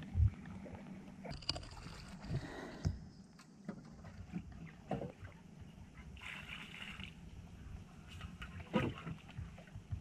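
Small wooden fishing boat moving on the river, with low knocking against the hull and water lapping. Water scooped out of the leaking boat with a pot is tipped over the side in short splashes, a couple of times in the second half.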